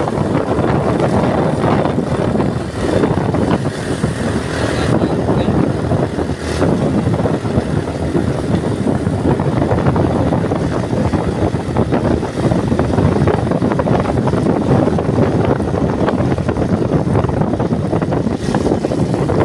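Loud, steady wind buffeting the microphone over the low rumble of a moving vehicle.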